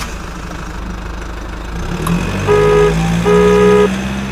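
A truck engine sound effect, a steady low running that rises slightly in pitch. Past the middle come two short honks of a two-tone vehicle horn.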